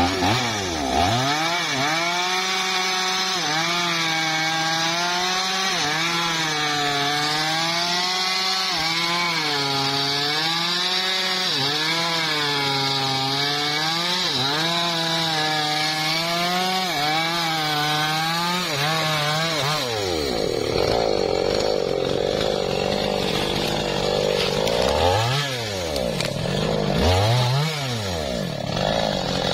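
Two-stroke chainsaw cutting through a log, its engine pitch sagging under load and picking up again every second or two. About twenty seconds in the cut ends and the saw runs unevenly, revving up and dropping back twice near the end.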